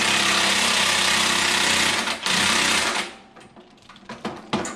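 Cordless impact driver running and hammering bolts tight, with a brief pause about two seconds in and a stop about three seconds in. A few light clicks and knocks follow.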